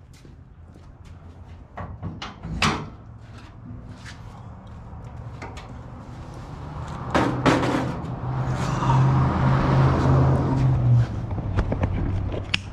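A 1952 Plymouth's sheet-metal hood being unlatched and lifted off by hand: scattered clicks and metal clunks, a loud knock about seven seconds in, then a few seconds of louder scraping and rubbing as the loose panel is handled.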